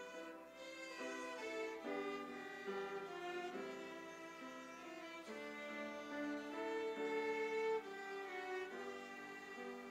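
Instrumental music: a bowed violin playing a slow melody of held notes over accompanying chords.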